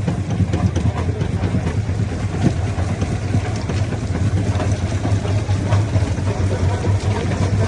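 Primary jaw crusher running under load: a steady low drone with irregular knocks and cracks of stone being broken.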